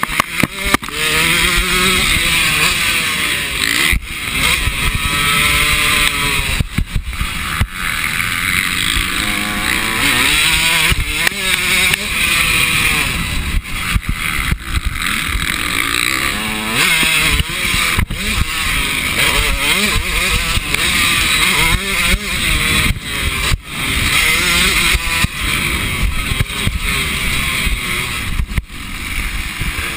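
KTM motocross bike engine, heard close from a handlebar-mounted camera while racing, revving up and down again and again through the gears. It is broken by many brief knocks and sudden dips, with wind noise throughout.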